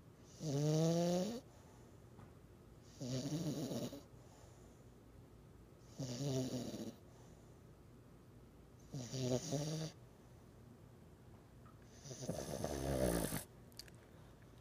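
French Bulldog snoring while asleep: five snores about three seconds apart, each lasting about a second. Each snore is a rasping, pitched drone whose pitch bends during the breath.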